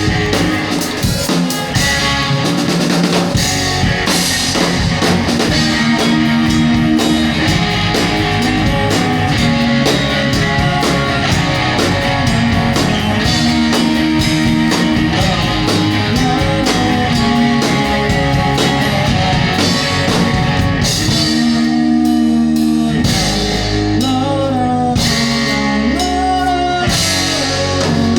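A live rock band playing, with drum kit, electric guitars and singing. About 21 seconds in, the drums drop back and held guitar or voice notes stand out.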